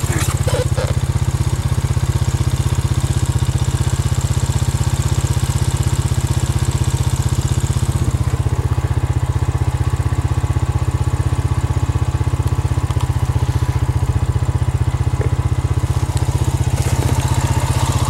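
An engine idling steadily nearby: a low, even throb that holds the same speed throughout.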